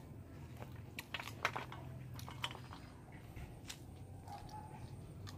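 A person biting and chewing grilled satay chicken feet: a scatter of small sharp clicks, most of them in the first half.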